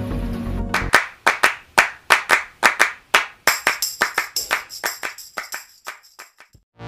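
Sound effects of an animated end screen: a run of about twenty sharp, clap-like clicks in an irregular rhythm, starting about a second in, with a bright ringing chime in the middle and fading out near the end.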